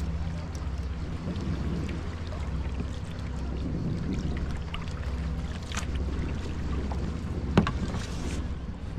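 Sea kayak on the move: water splashing and lapping around the hull and paddle, over a steady low wind rumble on the microphone. A single sharp knock comes about three-quarters of the way through.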